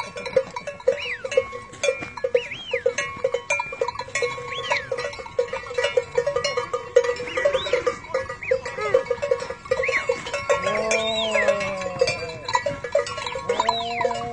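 Cowbells clanking steadily on a herd of cattle on the move, with scattered short high calls. Cattle moo twice, long and low, near the end.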